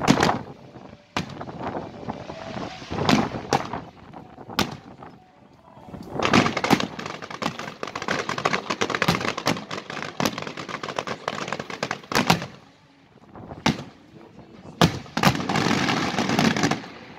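Fireworks display: aerial shells and cakes firing and bursting in sharp bangs, with dense runs of rapid reports about six to ten seconds in and again near the end, and a brief lull a little past the middle.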